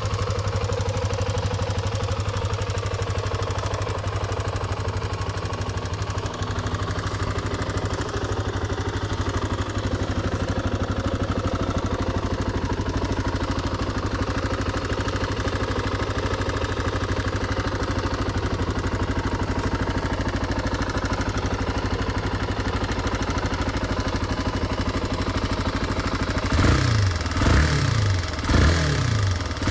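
Honda XR250R's single-cylinder four-stroke engine idling steadily, then revved in several quick blips of the throttle near the end.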